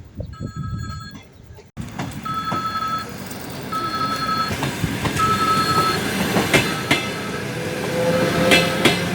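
An electric train at a station: a repeated high electronic beep sounds about every second and a half, then the train's rolling noise rises, with wheel knocks and a squeal of wheels on the rails near the end.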